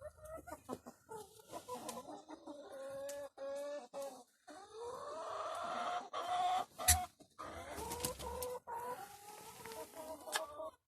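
Domestic fowl clucking in a run of short calls, with one longer drawn-out call in the middle. A sharp knock comes about seven seconds in, with a few fainter clicks around it.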